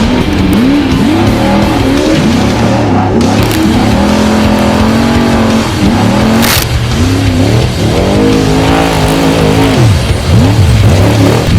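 Off-road race vehicle engines revving hard, their pitch rising and falling over and over, over background music.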